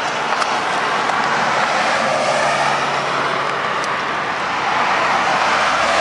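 Steady highway traffic noise: tyres and engines of passing cars, easing a little partway through and swelling again near the end.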